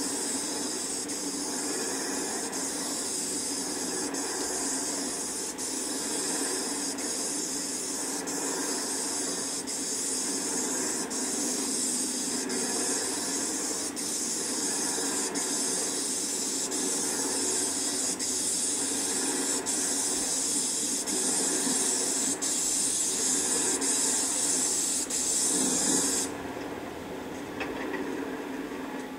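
Paint spray gun hissing steadily as it sprays paint onto roof tiles, over a steady low hum. The hiss cuts off suddenly near the end.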